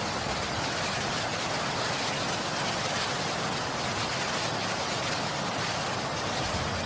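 A steady, even hiss of noise with no distinct drops, strikes or tones, at a constant level.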